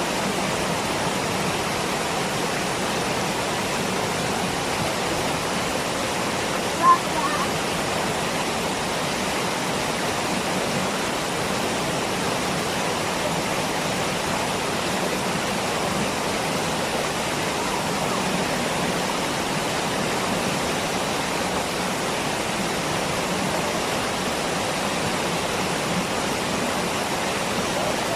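Waterfall rushing: a steady, even roar of falling water, with one brief louder blip about seven seconds in.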